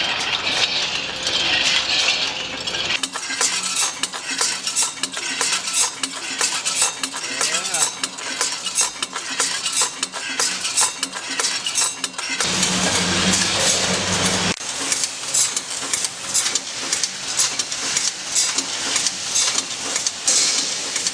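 Automatic combination weighing and packing machine running: a dense, irregular clatter of small hard biscuits rattling through the weigher over a steady machine hum. A heavier hum comes in for about two seconds past the middle, then cuts off sharply.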